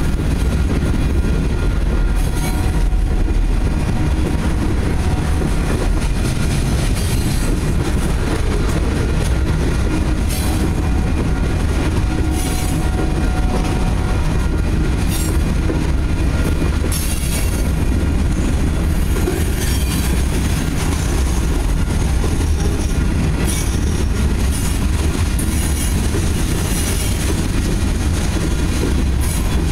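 Freight cars of a grain train rolling past close by: a steady heavy rumble with wheel clatter, and brief high metallic squeals from the wheels every few seconds.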